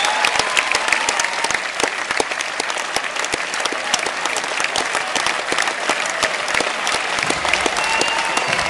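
Audience applauding ringside at a Thai boxing bout: steady, dense clapping, with a few voices calling out over it.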